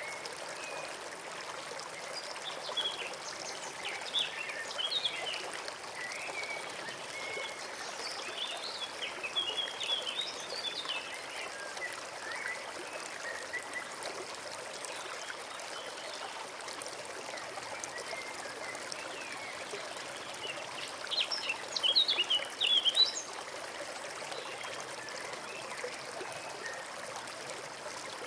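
Forest stream trickling and burbling steadily, with small birds chirping now and then over it; a quick run of louder chirps comes about three-quarters of the way through.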